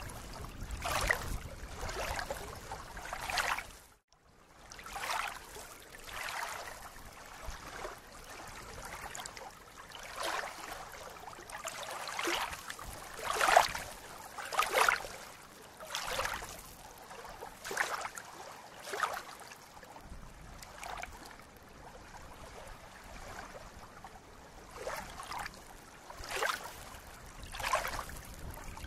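Small waves lapping and splashing against a reedy lakeshore, in irregular splashes about one every second or two. The sound briefly cuts out about four seconds in.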